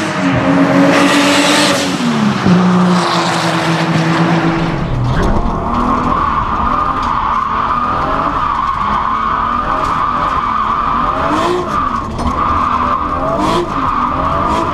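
Nissan Skyline GT-R R32's single-turbo RB26DETT straight-six running hard past trackside, its pitch dropping about two seconds in. About five seconds in, the sound switches to inside the car: the engine rising and falling with the throttle under a steady tyre squeal as the car powerslides.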